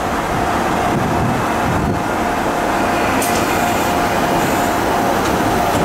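Diesel engine of a Mizushima Rinkai Railway KiHa 37 railcar idling steadily while the railcar stands at the platform, with a steady whine over the engine. A short high hiss comes about three seconds in, and a faint click about two seconds later.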